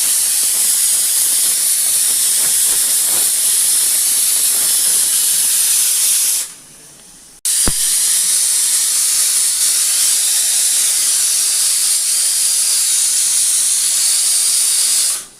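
Pressure cooker whistle venting steam in a loud, steady hiss. It breaks off about six and a half seconds in, then starts again after a sharp click about a second later and hisses until near the end.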